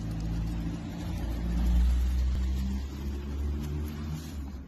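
A motor vehicle's engine running with a low, steady hum that swells about a second and a half in and then eases off.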